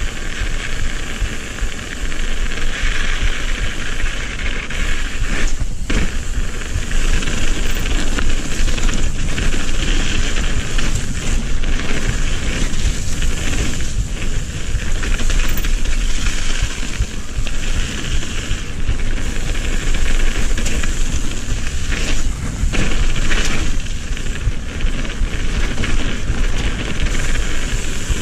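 Mountain bike ridden over dirt and gravel trail, heard from a helmet camera: steady wind rush over the microphone mixed with tyre noise on the ground, with occasional knocks and rattles from the bike.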